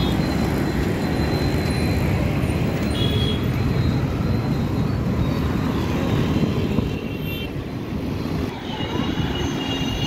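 Busy city road traffic: a steady rumble of buses, auto-rickshaws and motorbikes passing close by, with faint high-pitched tones briefly about three seconds in and again near the end.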